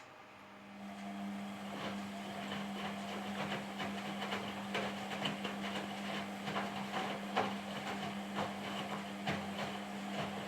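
Indesit WISN82 washing machine running its drum: a steady motor hum with irregular clicking and knocking throughout, starting just after the beginning.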